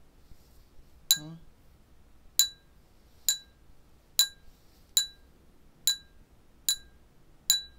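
Water-filled drinking glasses struck in a slow, even pulse, about eight strikes a little under a second apart, each one a bright ring on the same note that fades quickly.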